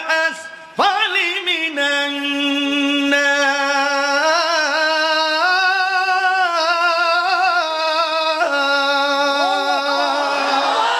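A single voice singing long, drawn-out notes with wavering ornaments, held for a second or more at a time.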